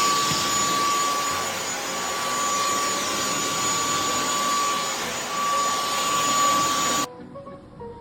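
Shark vacuum cleaner motor running steadily with a high whine over a loud rush of air. It cuts off suddenly about seven seconds in.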